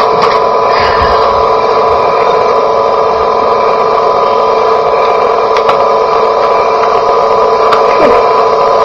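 Cassette tape playback through the small built-in speaker of a 1980s General Electric clock radio cassette recorder: a loud steady noise with a constant tone in it and a few faint clicks, the wordless stretch of a home-made test recording.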